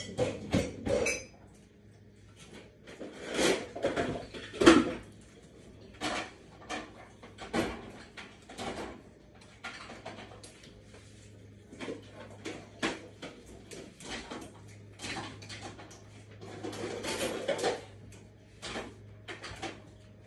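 Kitchen clatter: dishes and cutlery being handled, knocking together in irregular clinks and thumps, the loudest a sharp knock near the five-second mark. A low steady hum runs underneath.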